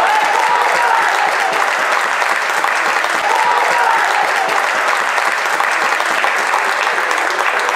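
Spectators clapping and cheering a goal, a steady patter of many hands with a few shouting voices.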